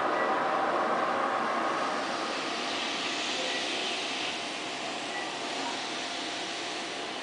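Steady rushing background noise with a faint hum, easing slightly in level.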